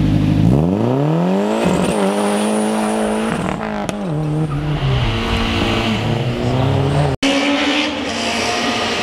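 Modified production hatchback hillclimb car launching from the start line: the engine, held on steady revs, sweeps sharply up as it leaves with the tyres spinning, then climbs and falls back through several upshifts as it pulls away. After a brief break in the sound near the end, an engine holds a steady higher pitch.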